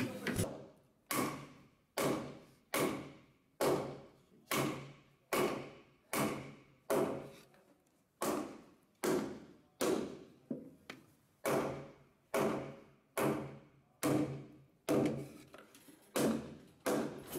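Steady blows, about one every 0.8 s, driving a wooden cam into the wooden windshaft of a hemp-beating mill. Each blow rings briefly and dies away.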